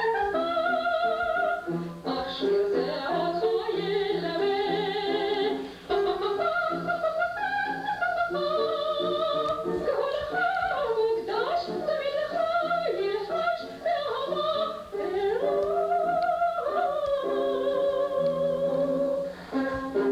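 A woman singing with wavering vibrato in long ornamented phrases. A steady low tone sits underneath her voice.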